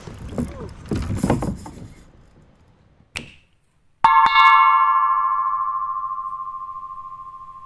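A notification-bell sound effect: after a quick whoosh, a bell chime strikes twice in fast succession about four seconds in. It rings on with a clear tone that slowly fades away. Before it there is a short stretch of scuffing outdoor noise.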